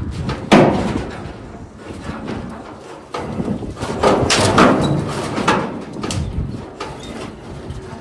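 Rusty corrugated roofing sheets piled on a trailer knocking and rattling as a strap is pulled tight over the load. There is a loud knock about half a second in and a cluster of knocks about four to five seconds in.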